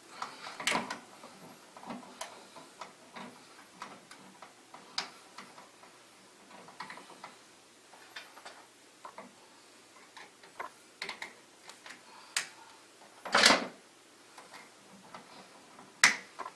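Scattered small clicks and taps of a light switch and its wires being handled and disconnected from the wall box, with a louder clatter about thirteen seconds in.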